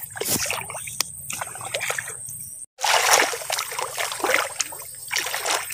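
Muddy rice-paddy water splashing and sloshing in irregular bursts as someone wades and works in the flooded field. The sound cuts out for an instant about halfway through.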